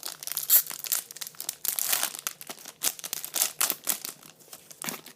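Plastic wrapper of a trading-card pack crinkling and crackling as it is torn open and pulled off the cards, a dense run of crackles that stops near the end.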